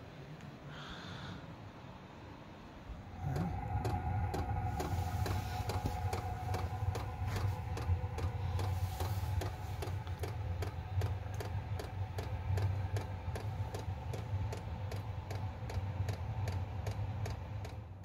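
Chinese diesel air heater running: its blower motor gives a steady low hum with a steady whine above it. Many quick clicks run through it, from the heater's ticking fuel pump and rain. The sound comes up louder about three seconds in.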